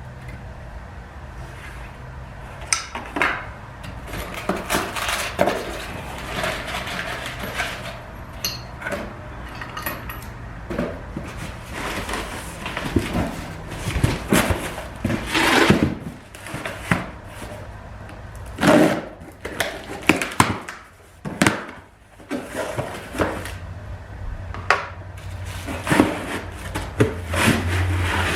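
Irregular clanks, knocks and rattles of a small propane forge's metal parts being handled and put together, with a low steady hum underneath.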